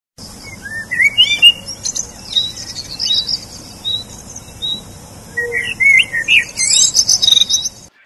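A songbird singing a fast, varied run of short rising and falling whistles and twitters, densest about a second in and again from the middle to the end, where it cuts off suddenly.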